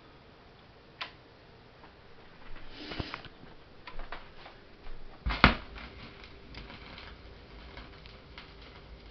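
A turntable being readied: a few scattered clicks and knocks, then a sharp thump about five seconds in as the stylus is set down on the record. After it come a faint steady rumble and light ticks of surface noise from the lead-in groove of the vinyl pressing.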